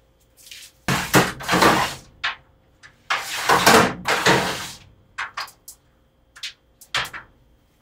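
Rustling and brushing noise as a cat's fur rubs close against the camera, in two longer bursts, followed by a few short light taps and knocks.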